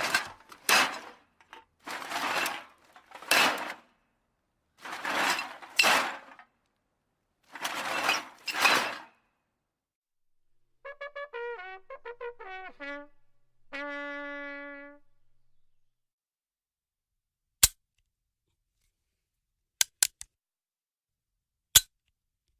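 A run of sound effects: five loud noisy bursts, each swelling twice, then a brass-sounding phrase of quick notes stepping down and ending on one held note, then three sharp clicks near the end.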